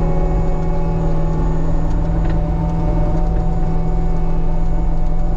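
Caterpillar skid steer's diesel engine running steadily under working load as the machine drives and grades, heard from inside the cab as a loud, even drone with a constant hum.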